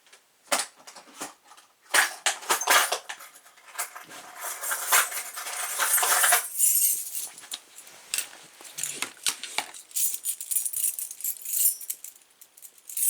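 Metal door hardware and keys being handled and rummaged through: a run of clicks and knocks, a stretch of dense rustling, then light jingling clinks of keys near the end.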